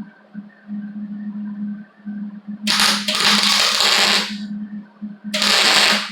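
Wire-feed (MIG) welder arcing in two bursts, a longer one of about a second and a half and then a shorter one: tacking a slide hammer's tip onto a dented car body panel to pull it out. A steady low hum runs underneath.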